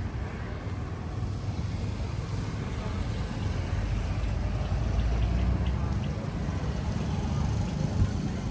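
A motor vehicle running, a steady low rumble with noise over it.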